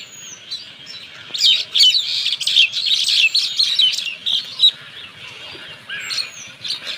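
Small birds chirping in a busy chorus, many short high calls crowding together, thickest from about a second and a half in.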